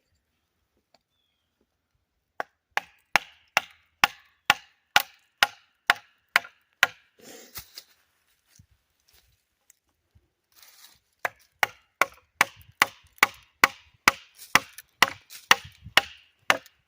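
Wooden baton knocking steadily at about two or three strikes a second, driving a split down a piece of wood. There are two runs of blows with a short pause and some faint scraping between them.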